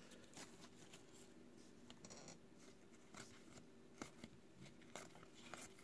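Near silence: faint, scattered soft clicks of trading cards being slid one behind another in the hands, over a low steady room hum.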